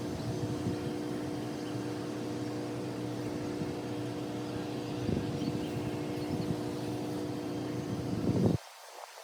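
A steady motor drone holding several fixed pitches, with a couple of brief knocks, which cuts off abruptly near the end.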